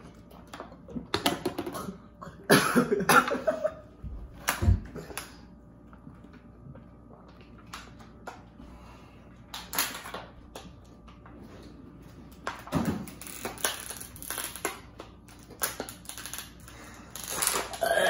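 Thin disposable plastic water bottle crackling and crinkling as it is squeezed and chugged, in irregular bursts a few seconds apart, with breaths and gulping between.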